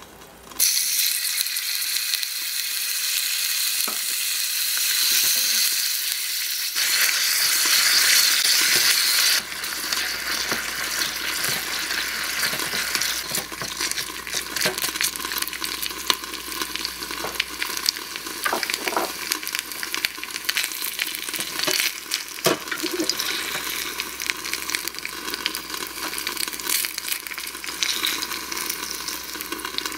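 Marinated beef pieces dropping into a tiny hot stainless steel saucepan and sizzling, starting suddenly about half a second in. The sizzle is loud for the first nine seconds or so, then settles to a lower, steady crackle while a small wooden spatula stirs and scrapes, with occasional knocks against the pan.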